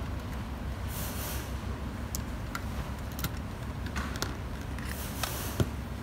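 Small clicks and rustles of wires being handled and fitted in an uplight's power supply compartment, over a steady low background rumble. The sharpest click comes near the end.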